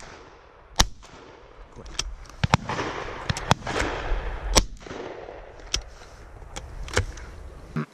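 Shotgun shots, a dozen or so at irregular intervals, some close and loud and others fainter and farther off, each trailing away in a short echo.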